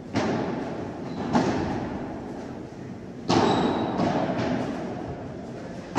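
Padel ball being hit back and forth in a rally: three sharp knocks, spaced about one and a half to two seconds apart, each ringing out with a long echo in the large hall.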